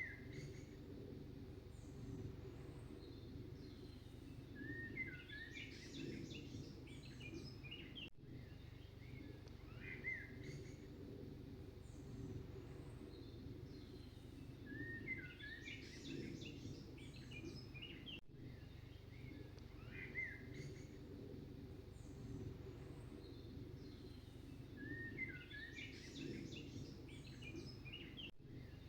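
Birdsong ambience in a loop: chirps and bursts of twittering over a steady low background, the same pattern repeating about every ten seconds with a brief dropout at each repeat.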